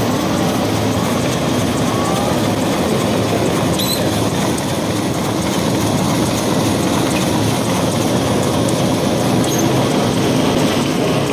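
Automatic two-colour L-fold napkin paper machine running at speed: a loud, steady mechanical clatter and hum from its rollers and folding gear, with a few faint short squeaks.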